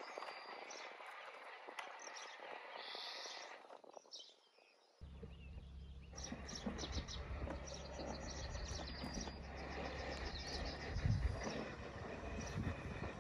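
Birds chirping over garden ambience, with a short drop in sound about four seconds in. From about five seconds a low steady hum comes in under quick runs of high chirps.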